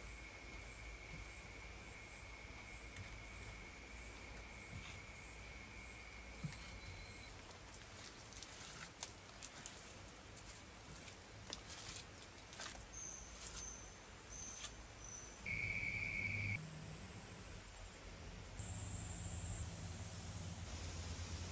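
Insects calling in several steady, high-pitched trills that start and stop, one of them pulsing about twice a second for the first seven seconds. A few light knocks come in the middle, from bricks and clay being handled on a mud-brick furnace.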